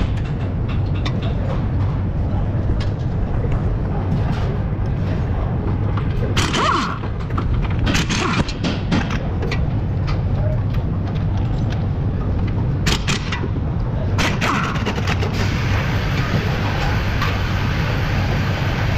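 Car-repair garage noise: a steady low hum with scattered sharp knocks and clanks of metal parts and tools, a few of them louder around the middle.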